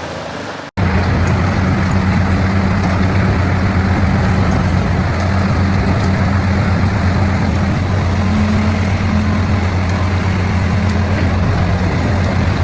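Large forestry wood chipper running: a loud, steady engine drone under dense mechanical noise. It begins abruptly about a second in.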